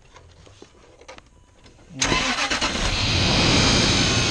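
Faint clicks, then about two seconds in the Range Rover's V8 cranks and fires up and keeps running. The starter, which intermittently only clicks and is suspected of failing, engages on this try.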